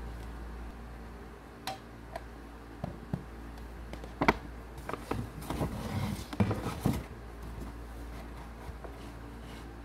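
Objects being handled: scattered short clicks and knocks, busiest from about four to seven seconds in, over a low steady hum.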